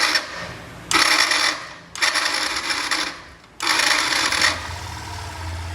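Electric starter motor of a Yamaha Factor 150 cranking in four short bursts with a harsh metallic grinding rattle, then the single-cylinder engine catching and idling near the end. The rattle comes from a worn starter: damaged armature and pinion ends and a loose bearing, which new brushes do not cure.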